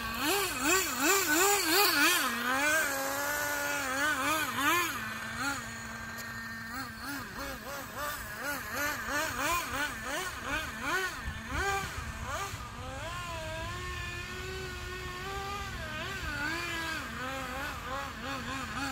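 Traxxas Nitro 4-Tec RC car's small two-stroke nitro engine revving up and down in quick, wavering swings as the car is driven. It holds a steadier note for a second or two about five seconds in and again around the middle, and is loudest in the first few seconds.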